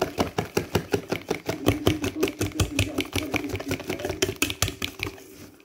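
A spoon stirring thick chocolate cookie dough in a stainless steel mixing bowl: a rapid clatter of the spoon against the bowl, about seven strokes a second, thinning out near the end.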